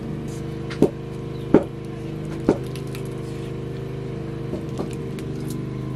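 Three sharp knocks about a second apart, then two faint taps, over a steady low hum.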